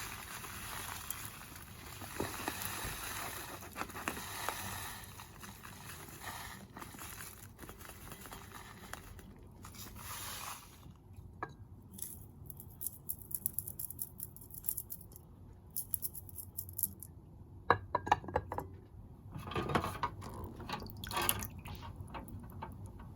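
Work at a glass vase aquarium: a steady rushing pour for about the first ten seconds, then scattered clinks and scrapes against glass.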